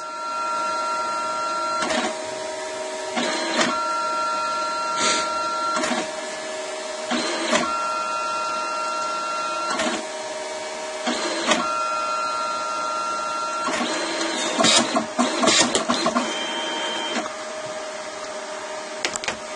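Mitsubishi CP-K60DW dye-sublimation printer printing a 4x6 photo: a steady motor hum with four repeated passes of about two seconds each, a higher tone added during each pass and a clunk between them. Near the end comes a run of clicks and rattles as the finished print is pushed out.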